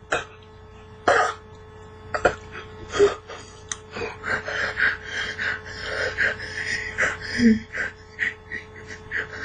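A man coughing and gasping a few times in the first seconds, then making wordless vocal noises, with a steady hum underneath.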